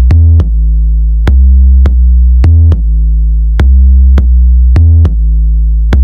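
Loud electronic background music with a deep bass line held under sharp, regular beat hits.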